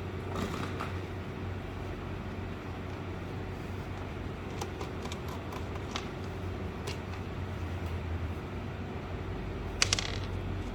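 A steady low mechanical hum, with a few light clicks of small metal hardware being handled as nuts are taken off the back of a switch box; the sharpest click comes near the end.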